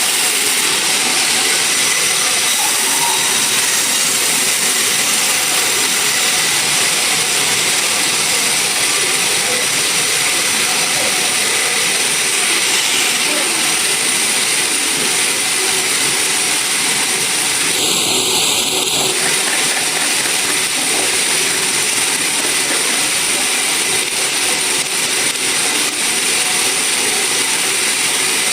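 Sawmill machinery running steadily: a loud, even, hissing mechanical noise with no breaks.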